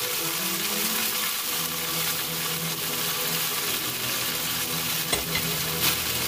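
Chicken leg quarters sizzling steadily as they fry in olive oil in a nonstick skillet. Two short clicks come near the end.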